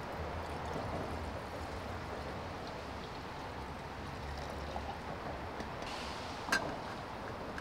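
Water poured from a plastic bottle into a metal camping pot, a steady trickling splash. About six and a half seconds in, one sharp clack as the pot is set down on the camp stove's metal pot supports.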